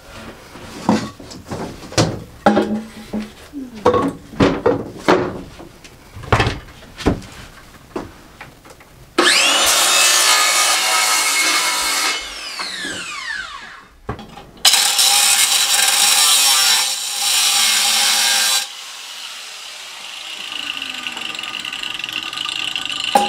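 A run of knocks and clatters, then a cordless circular saw spins up and cuts plywood subfloor twice, each cut a few seconds long; the blade winds down audibly after the first cut. A quieter steady high whine follows near the end.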